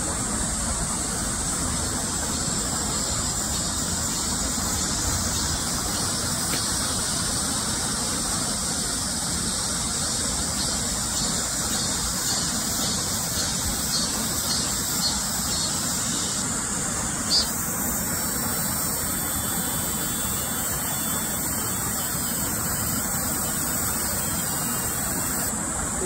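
Steady rush of a mountain valley stream, with a steady high-pitched hiss above it. The high part shifts slightly about seventeen seconds in, with one short click.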